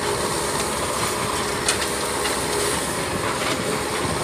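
Backhoe loader diesel engines running steadily, with a few sharp clanks, the loudest about a second and a half in.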